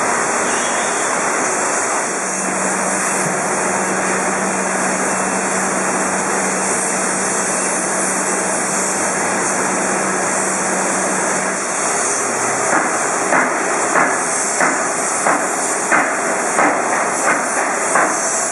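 Industrial laundry machinery running with a loud, steady hiss. A low hum runs through the first half, and in the second half regular knocks come about one and a half times a second.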